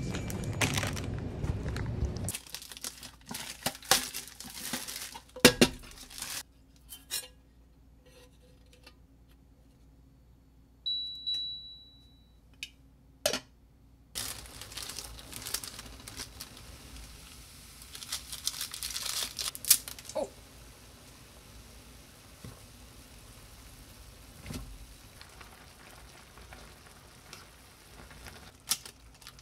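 Instant-ramen cooking sounds: a store's low background hum cuts off about two seconds in, then a ramen packet crinkling and tearing, clicks and clatter of a pot and lid, and a single beep of an induction cooktop about halfway. Near the end chopsticks stir the noodles in the pot.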